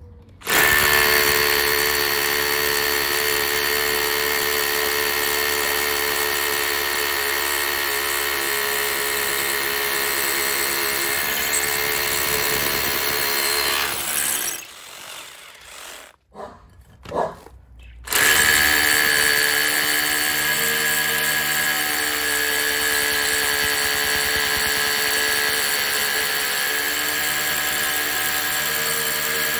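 Parkside cordless hammer drill boring into brick with a masonry bit, its motor running with a steady whine under load. It stops about halfway through, gives a couple of short blips, then drills again at the same steady pitch.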